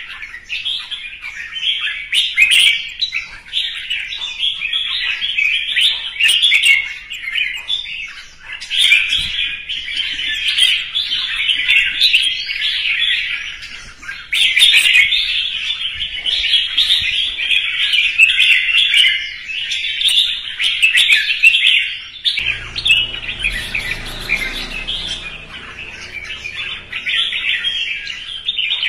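Red-whiskered bulbul singing its competitive song, a fast, nearly unbroken run of bright chirping phrases. A low rumble joins about three-quarters of the way through and lasts a few seconds.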